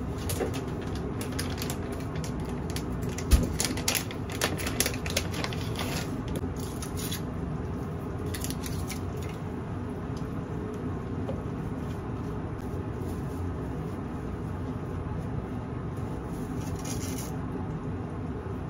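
Cooking at a gas hob: a steady noise from the frying pan on its lit burner, with rustling, clicks and one sharp knock over the first several seconds as a packet of consommé seasoning is handled and shaken out, and a brief rattle of dry spaghetti going into the pan near the end.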